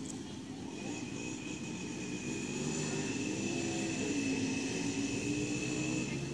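A motor droning with a thin high whine above it, its pitch wavering a little and dipping then rising about two-thirds of the way through.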